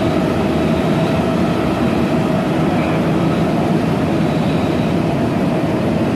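Osaka Metro 20 series subway train running between stations, heard from inside the car: a steady rumble of wheels and running gear with a faint steady tone above it.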